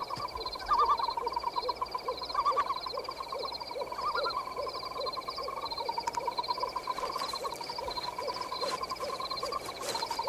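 Night-forest sound effects: an owl hooting in short calls repeated about twice a second, over a steady high trilling chorus, with a few louder calls early on.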